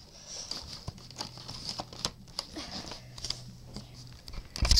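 Toy packaging being worked open by hand: a run of small rustling, scraping and crinkling sounds, with a few louder knocks near the end.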